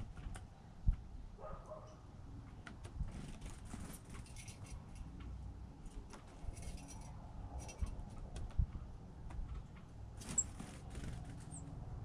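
Small birds feeding on a wooden deck: light, irregular taps and thumps of pecking at seed and hopping on the boards, with a couple of short, high chirps near the end.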